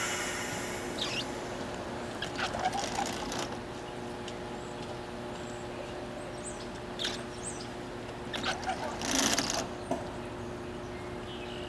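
GO Transit commuter train standing at the station, its diesel engine holding a steady hum of several fixed tones. A hiss of air dies away at the start, and a few short, sharp noises come and go over the hum, the loudest about nine seconds in.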